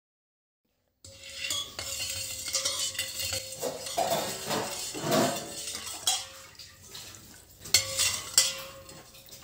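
Metal spoon stirring milk in a stainless steel bowl, swishing through the liquid and scraping and clinking against the bowl's sides, starting about a second in. A couple of sharper clinks come near the end.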